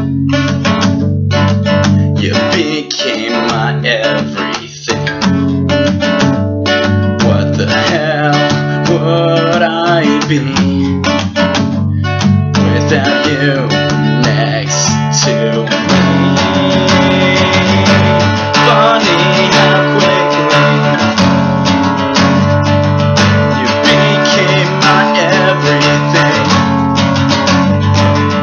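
Acoustic guitar strummed in steady chords as song accompaniment, with a man singing over it.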